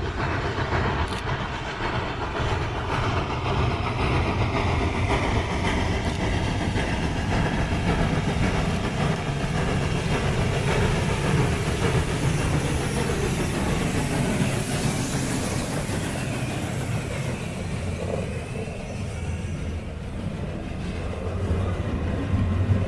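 ČSD class 434.2 steam locomotive working a train of vintage passenger coaches, approaching and passing close by with a steady loud rumble. Its sound rises as it draws level, then the coaches roll past, a little louder near the end.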